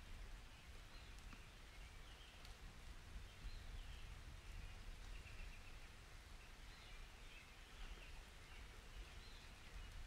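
Faint outdoor storm ambience: a low, steady rumble under a light hiss, with soft bird chirps here and there.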